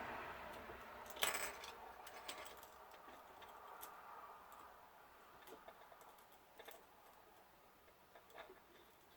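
Faint scattered clicks and small taps of small parts and tools being handled during a drone gimbal repair, with one sharper click about a second in.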